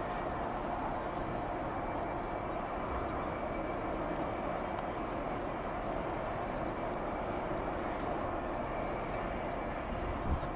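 Steady rumble and hum of stabled diesel locomotives idling at a depot, with a few faint steady tones over it. A brief low thump comes near the end.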